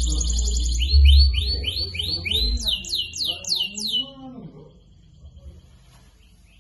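Domestic canary singing: fast trills of one repeated high note, switching to a new note about every second, ending in a run of quick downward-sweeping notes before the song stops about four seconds in. A low rumble runs under the first half.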